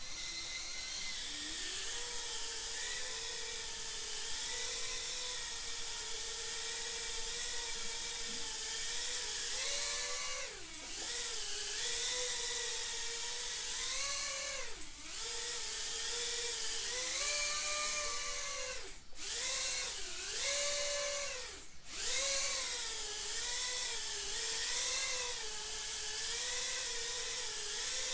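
Four brushless motors (Happymodel SE0802 19000KV) of a 1S 65mm tiny-whoop FPV drone whining in flight. The pitch rises and falls with the throttle, and about four times the whine dips sharply and then climbs back.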